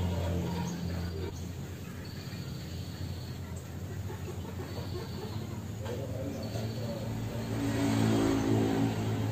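A motor engine runs with a steady low hum that grows louder about seven seconds in. A faint high-pitched tone comes and goes a few times over it.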